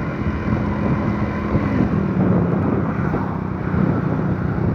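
Motorcycle engine running steadily while riding, its low hum wavering slightly in pitch, under a steady rush of road and wind noise.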